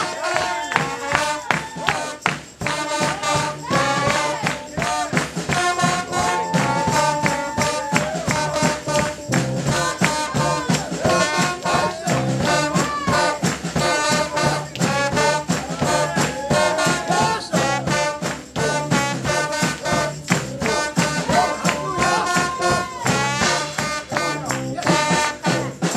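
Lively church praise music: a fast steady beat of percussion and handclaps under pitched melody lines with singing, some notes held long.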